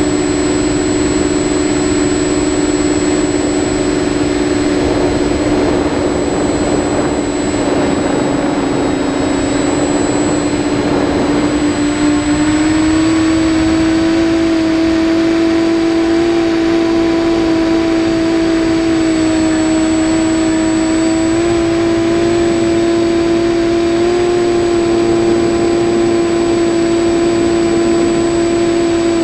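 An FPV quadcopter's electric motors and propellers whining steadily, as picked up by the onboard GoPro, with air rushing over the camera. The pitch rises a little about twelve seconds in as the throttle changes.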